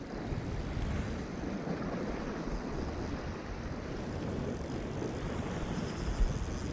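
Wind buffeting the microphone, a steady low rumble with one brief low thump about six seconds in.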